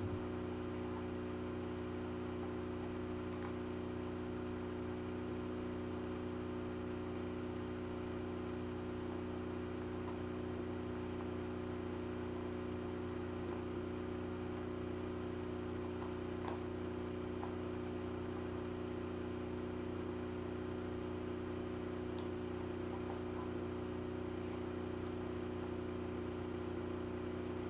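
Steady low electrical hum, several even tones held without change, with a couple of faint clicks.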